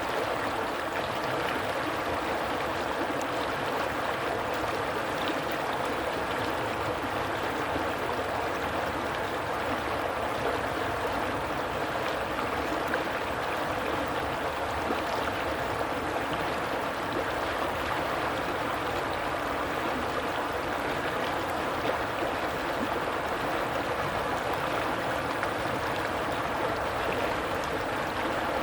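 A stream of water flowing steadily, an even, unbroken rush.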